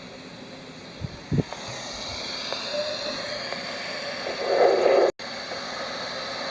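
Weather radio receiver static: a steady hiss with a couple of low thumps about a second in and a brief louder burst about four and a half seconds in, followed by an instant's dropout of the audio.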